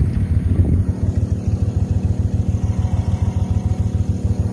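A boat engine running steadily: a low drone with a fast, even pulse, as the bowfishing boat moves along.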